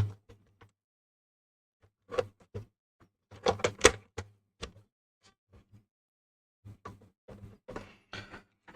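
Laptop battery clicking into place with one sharp snap, followed by irregular clicks and knocks of hard plastic parts being handled and fitted on the laptop.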